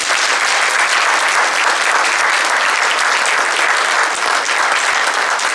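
An audience applauding steadily in welcome as a speaker is introduced.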